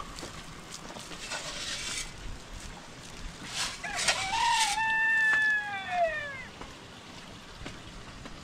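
A rooster crowing once, about four seconds in: one long call that holds its pitch and then falls away at the end.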